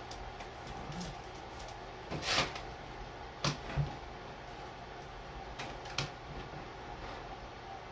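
Hands pressing and shifting a scrunched cotton T-shirt on a tabletop: a few short, soft knocks and fabric rustles, the longest about two seconds in, over a steady low room hum.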